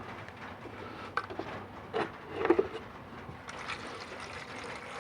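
A few clicks and knocks as a can of fuel injection system cleaner is handled and opened. From about three and a half seconds in, the cleaner streams steadily into a coffee mug holding the fuel injectors.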